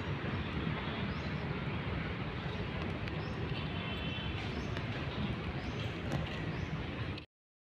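Steady outdoor urban background noise, mostly a low rumble, with a few faint high chirps. It cuts off abruptly near the end.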